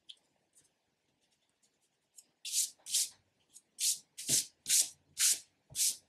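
A few faint pencil ticks, then from a couple of seconds in a run of loud rubbing strokes on drawing paper, about two a second.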